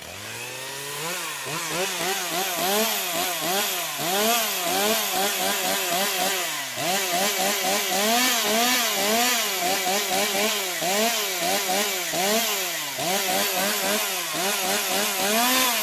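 Chainsaw sound effect: the saw starts up with its pitch climbing over the first second, then revs up and down over and over.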